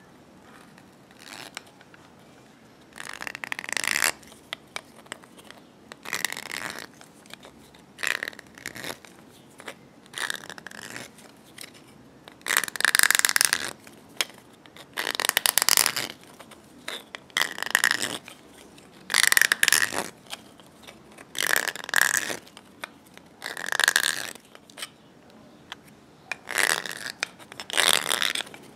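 Metal file rasping against the inside edge of a cut white PVC tube, deburring it. Repeated scraping strokes, about one every two seconds.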